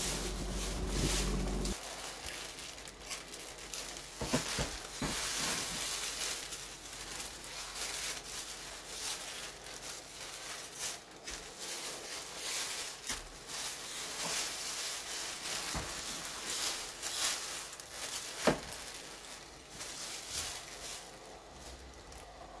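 Thin plastic shopping bag and the umbrellas' clear plastic sleeves rustling and crinkling as they are handled, with scattered sharp crackles and clicks throughout.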